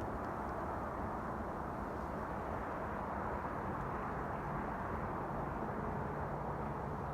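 Steady, unbroken rumbling drone of unidentified origin, the mysterious noise in the night air. It is even in level, with its energy low and mid-pitched, and a faint thin tone comes in near the end.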